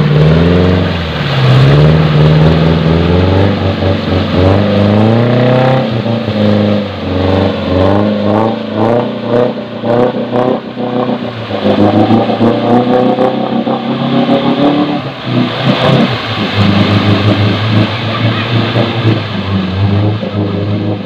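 Off-road 4x4's engine revving hard, its pitch rising and falling again and again as the tyres spin and churn through deep mud.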